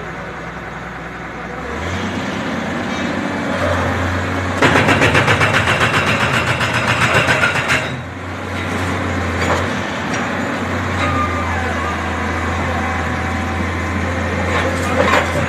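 Hydraulic excavator's diesel engine running steadily as it demolishes a brick and concrete building, with a loud fast rattling for about three seconds mid-way and a few sharp knocks near the end.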